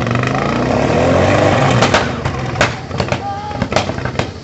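Off-road 4x4's engine revving under load as it climbs onto an obstacle. It rises in pitch and loudness over the first two seconds, then eases off, with scattered knocks.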